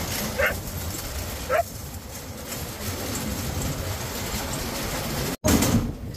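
A vehicle rumbling as it drives over a rough stubble paddock, with two short yelps from a dog, each falling in pitch, about half a second and a second and a half in. The sound cuts out for an instant near the end and comes back louder.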